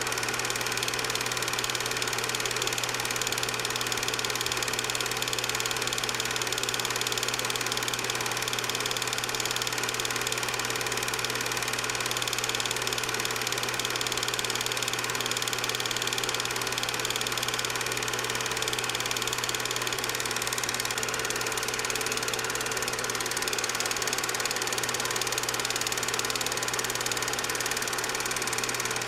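8mm film projector running: a steady mechanical whir and hum that does not change.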